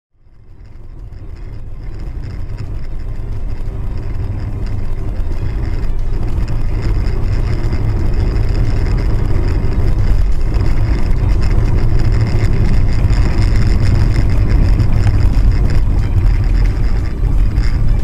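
Road noise inside a moving car as heard by a dashcam: a steady low rumble of engine and tyres on a wet road, fading in over the first few seconds.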